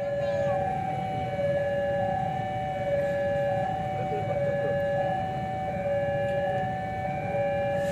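Railway level crossing warning alarm sounding: an electronic two-tone signal that keeps alternating between a higher and a lower note, over a low rumble.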